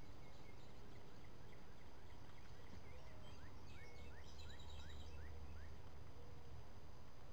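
Woodland ambience with birds calling, including a run of short rising chirps in the middle, about two a second, and a brief low rumble at the same time.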